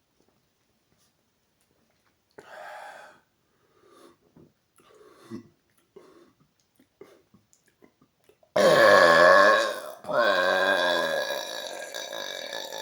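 A man's long, loud burp brought up by gulping carbonated Coke Zero. It starts about two-thirds of the way in, wavers in pitch and, after a brief break, just keeps on going. A few faint short sounds come before it.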